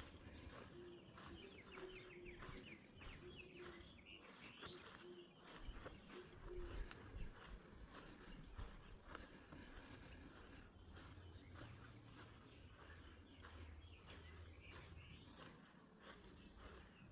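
Faint outdoor ambience with birds calling in the first few seconds, a few short repeated calls and chirps, and scattered light clicks.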